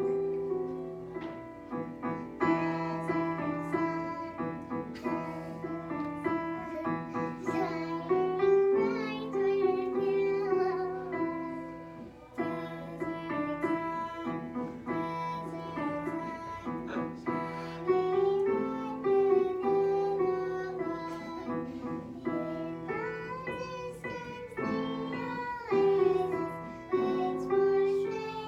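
A child's voice singing a simple song over piano accompaniment, with the singing passed from one child to the next.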